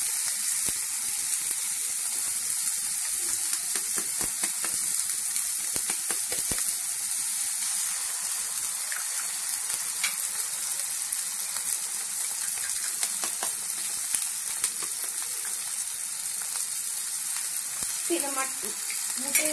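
Oil sizzling steadily in a non-stick kadai under a mix of onion and tomato, with two eggs added to the pan. A few light clicks are heard, likely a utensil against the pan.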